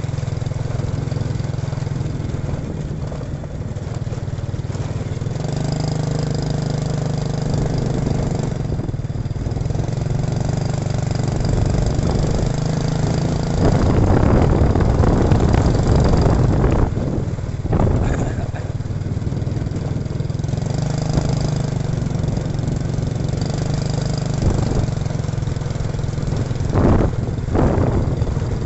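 Motorcycle engine running steadily at low speed, with wind rushing over the microphone for a few seconds in the middle and several sharp knocks in the second half.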